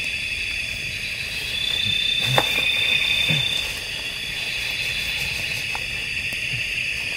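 A steady, high chorus of night insects, with one nearer insect trilling on a single high note from about a second and a half in until past halfway. A few faint knocks and rustles come from tent fabric and poles being handled.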